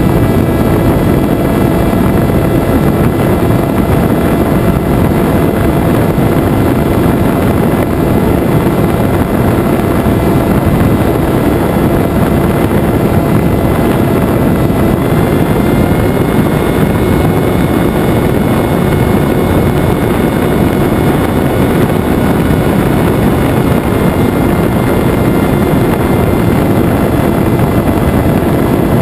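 Venturi FPV flying wing's electric motor and propeller running steadily in flight, a steady whine over heavy rushing air noise; the whine steps up slightly in pitch about halfway through.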